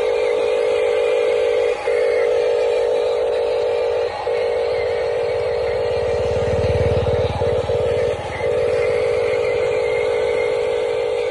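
Huina RC dump truck's electric drive running under a load of planks: a steady high whine, cut off briefly a few times, with a rougher low rumble for about two seconds past the middle.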